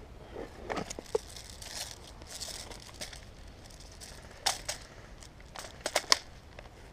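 Rustling and crackling of a player's movement right at the head-mounted camera, with several sharp snaps: one about a second in, one midway, and a louder cluster near the end.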